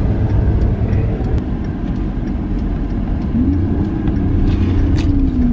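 A motor vehicle running steadily, with a low, even noise. A wavering droning tone joins in about three seconds in.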